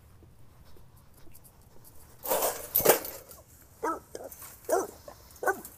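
Bulldog stuck in a chain-link fence: a loud scuffling burst about two seconds in, then several short whines that rise and fall in pitch.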